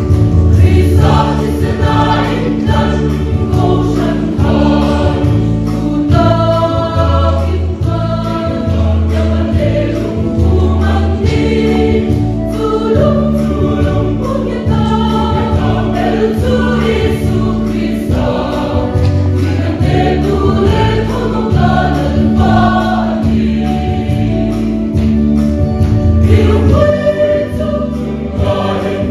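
Choir singing a Christian song with instrumental accompaniment and a steady beat.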